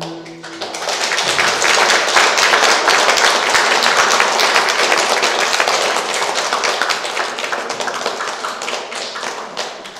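Audience applauding, breaking out about half a second in as the music stops, then slowly fading toward the end.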